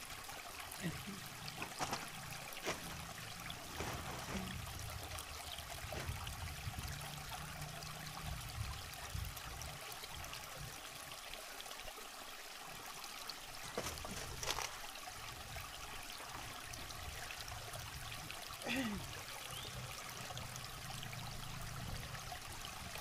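River water flowing steadily, with a few sharp clicks now and then.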